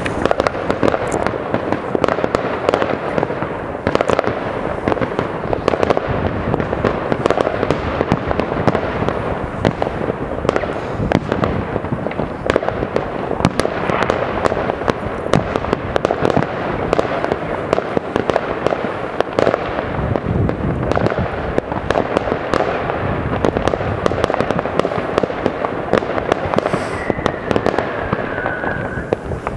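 New Year's Eve fireworks going off across many displays at once: an unbroken barrage of overlapping bangs, pops and crackles with no gaps. A short falling whistle near the end.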